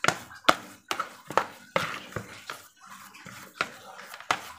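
A plastic rice paddle pressing, slapping and scraping sticky carp-bait dough against a plastic bowl, heard as an irregular run of sharp slaps and clicks, about two a second. The dough is being kneaded to a firm, even mix.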